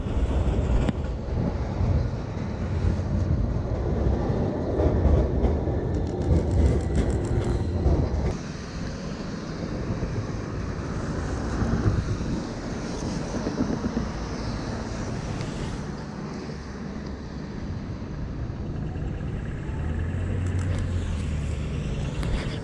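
City street traffic on wet roads: a vehicle passes, loudest in the first eight seconds, then a steadier low rumble of traffic continues.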